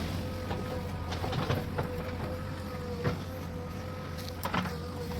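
JCB 3DX backhoe loader's diesel engine running steadily, a low drone with a steady whine above it, and scattered clicks and knocks throughout.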